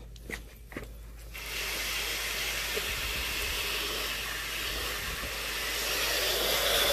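Two light clicks, then about a second and a half in a garden hose spray nozzle starts hissing steadily as water sprays across a plastic folding table to rinse it clean.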